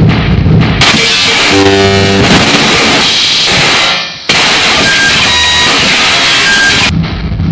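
Harsh digital noise music in cut-up style. A low pulsing rumble is cut off abruptly by a blast of full-range static with stacked buzzing tones. The blast dips out briefly about four seconds in, returns at once, and cuts back to the low pulsing rumble near the end.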